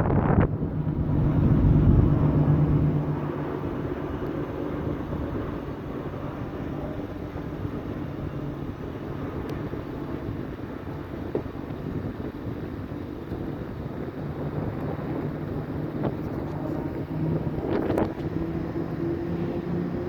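Steady engine drone with a pitched hum that climbs in pitch near the end. Wind buffets the microphone for the first few seconds.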